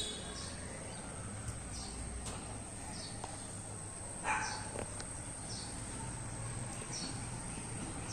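Outdoor ambience: short bird chirps repeating every second or so, with one stronger call about four seconds in, over a steady high insect drone and a low even rumble.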